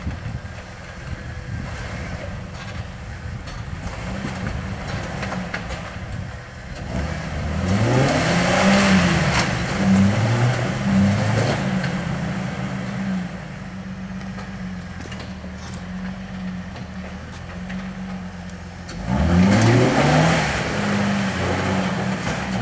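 Off-road rig's engine running at low revs under load on a rock climb, revved up hard twice: about a third of the way in and again near the end.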